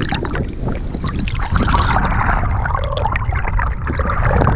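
River water splashing and gurgling right at the microphone of a camera held at the waterline, a dense wash of small splashes and drips with a low rumble underneath.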